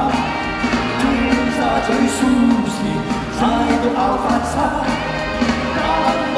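Live band playing an upbeat Cantopop song, with a man singing over it.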